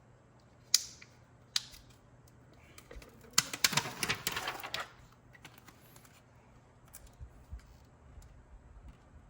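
Two sharp clicks, then about a second and a half of rapid clicking and rustling from handling peel-and-stick backsplash tiles.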